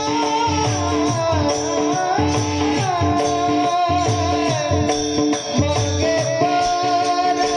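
Marathi devotional kirtan music: a singer's winding, ornamented melody over held drone notes, with regular drum beats and jingling percussion.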